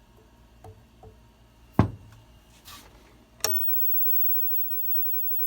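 Sharp electrical snaps from inside a Panasonic black-and-white tube TV: a few faint ticks, a brief hiss, and two loud cracks about two and three and a half seconds in. The owner has never heard the sound before and puts it down to sprayed liquid being electrocuted.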